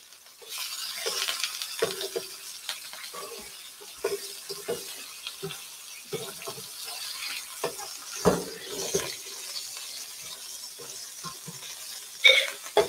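Beef Salisbury steak patties sizzling in a frying pan as they are flipped, over a steady hiss. Scattered clinks and knocks of utensils and glassware run through it, with a louder knock about eight seconds in and a sharp clatter near the end.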